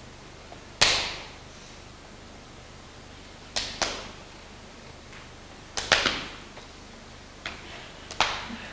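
Sharp hand slaps, about eight, coming singly and in quick pairs at irregular intervals, each followed by a short echo from the hall.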